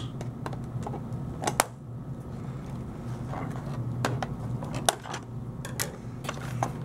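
Scissors snipping through the ties and plastic of a toy blaster's retail packaging, with the card and plastic being handled: a string of sharp, irregular snips and clicks over a steady low hum.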